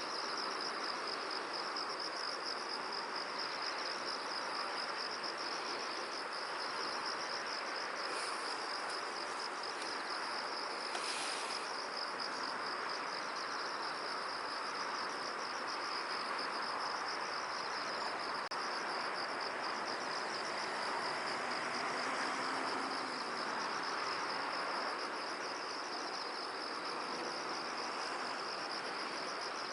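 Insects trilling steadily in a fast, even, high-pitched pulsing chirr, over a steady rushing hiss.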